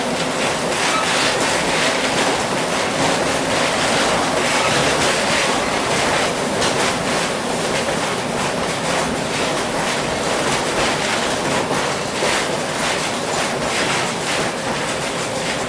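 Vintage 1906 John Stephenson-built streetcar running along its track, heard from inside the wooden car: a steady rumble and rattle with frequent light clicks.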